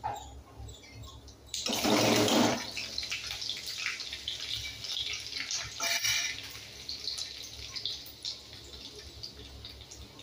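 Cumin seeds and chopped garlic sizzling and crackling in hot oil in a steel kadhai, the tempering (chhaunk) of the curry. A loud surge of sizzling comes about a second and a half in, when the garlic goes into the oil, and a second brief flare comes about six seconds in.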